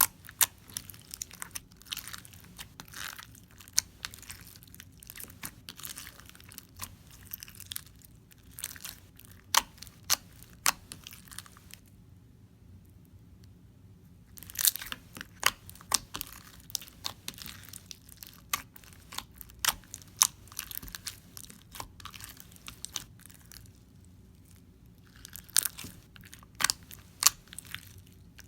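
Crunchy fishbowl slime being squeezed and worked by hand, its plastic fishbowl beads crackling in quick, irregular pops. The crackling stops for about two seconds near the middle, then starts again.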